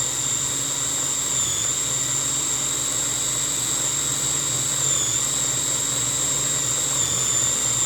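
Food processor motor running steadily with a high whine, its pitch dipping slightly three times, as it purées chickpeas with olive oil into a smooth paste.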